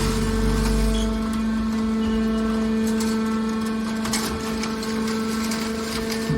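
Hydraulic waste metal baler running: its power unit gives a steady hum, with a deeper rumble that drops away about a second in and a few faint metallic clicks and rattles midway.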